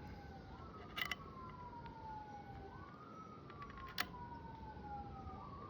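Faint emergency-vehicle siren in a wail pattern: a tone that rises quickly and then slowly falls, twice. Two small sharp clicks are heard, about a second in and about four seconds in.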